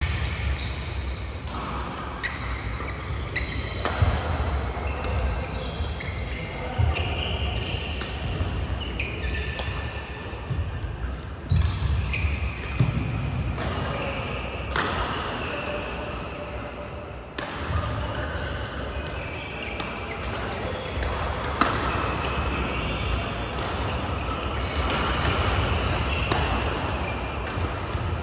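Badminton rackets striking a shuttlecock again and again on several courts, with short squeaks of shoes on the court mats, all echoing in a large hall.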